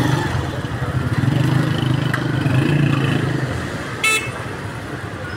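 Small motorcycle engines running close by in busy street traffic, a steady low drone, with one short horn toot about four seconds in.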